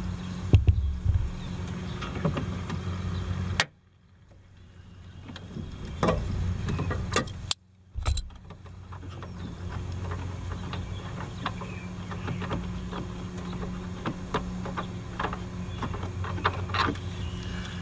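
Scattered clicks and light knocks of hands working the taillight's black plastic fasteners and the trunk trim, over a steady low hum. The sound cuts out abruptly twice.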